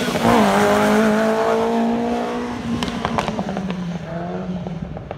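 Classic sports car's engine at full throttle on a hill-climb run, with a quick dip and recovery in pitch just after the start as it changes gear. It then pulls steadily and fades as it drives away, with a few sharp crackles midway.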